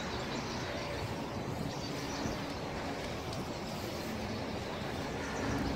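Steady outdoor background hum of distant city traffic, even and without separate events.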